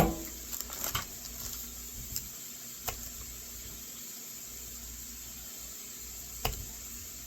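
Pot of green beans and bacon in bacon grease and melting margarine cooking on the stove, with a steady soft sizzle. A sharp click of a utensil on the pot right at the start, then a few fainter clicks.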